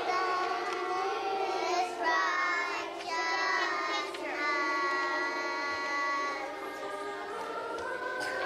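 Group of young children singing together, holding long sung notes with short breaks between phrases.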